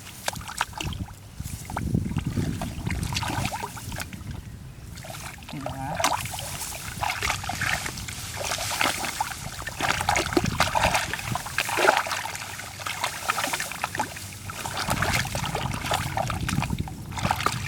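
Irregular splashing and sloshing of shallow, muddy water in a flooded rice field.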